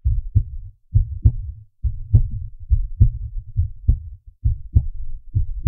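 Heartbeat sound effect: a low double thump (lub-dub), repeating seven times at a little faster than once a second.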